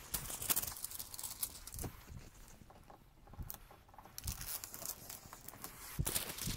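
Plastic protective film and packaging being peeled and crinkled off a new flat-screen TV: faint, intermittent crackles and rustles.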